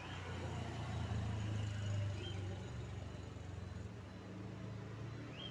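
A vehicle engine's low, steady rumble, swelling about one to two seconds in, with a few faint, short, high chirps over it.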